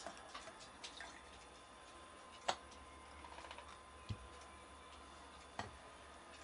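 Beer poured from a glass bottle into a drinking glass: a faint trickle with a few sharp clinks of glass on glass, the loudest about two and a half seconds in and another near the end, and a duller knock about four seconds in.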